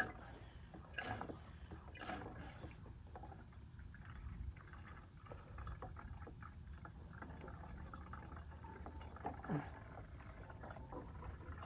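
Diesel fuel being poured and trickling into a container, faint, with a few handling knocks in the first few seconds.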